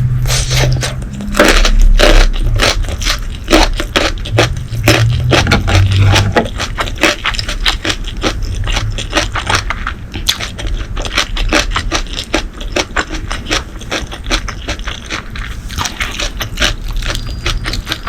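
Close-miked eating: rapid chewing with dense crisp crackles and clicks, and a few low bumps in the first six seconds.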